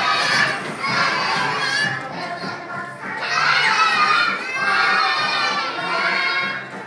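A group of young children singing together loudly, almost shouting, in phrases about a second long with a short lull partway through, over a recorded backing track.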